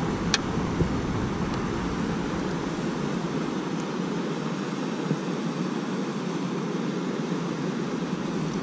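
Steady outdoor background hiss with no clear rhythm, and one sharp click just after the start.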